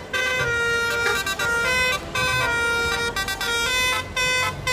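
Telolet bus horn, a multi-tone air horn, playing a quick tune: a run of short, steady notes that step between pitches with brief breaks.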